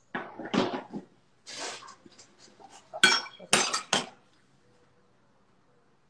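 Kitchen clatter of dishes and cutlery being handled, a few short knocks and scrapes, then a sharp ringing clink about three seconds in followed by another knock; it falls quiet after about four seconds.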